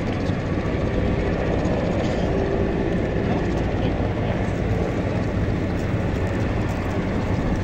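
Steady low engine rumble with no marked changes.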